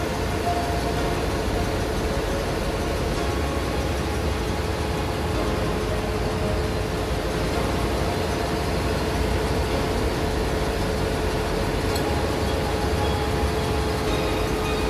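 Steady engine-room machinery noise, a continuous drone of running marine diesel machinery with one constant hum tone held throughout.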